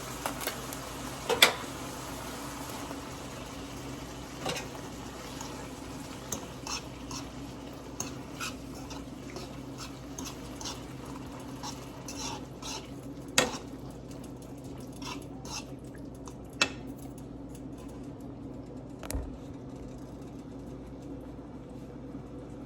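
A metal utensil clinking and scraping against a can and pan as condensed cream of mushroom soup is spooned in. Scattered sharp clinks, the loudest about a second and a half in, sound over a steady low hum.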